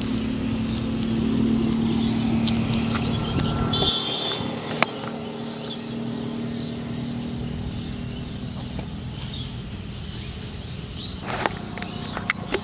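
A motor vehicle's engine hum, loudest in the first four seconds and then fading, with a single sharp click about five seconds in.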